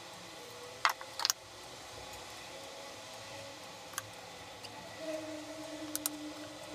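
Sharp clicks and taps of plastic measuring scoops and a metal spoon against a plastic measuring jug and a wooden board as dressing ingredients are tipped in: two or three quick clicks about a second in, then single clicks later. A faint steady hum comes in about five seconds in.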